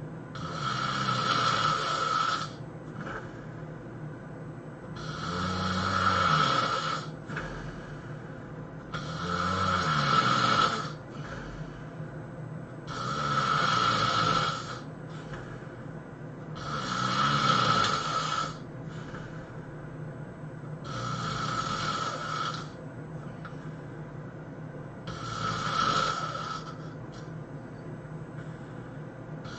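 A sleeping person snoring heavily: seven long snores, about one every four seconds, each lasting about two seconds, with a steady low hum underneath between them.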